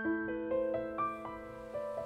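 Background piano music: a gentle melody of single struck notes, several a second, over a sustained low note.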